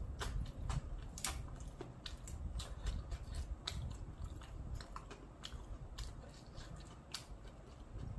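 Someone chewing a crispy fried spring roll up close: irregular crunches and sharp crackles, several a second.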